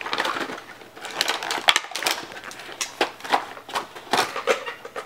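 Paper and plastic packaging crinkling and rustling in quick, irregular crackles as a gift box is opened and a clear plastic bag inside it is handled.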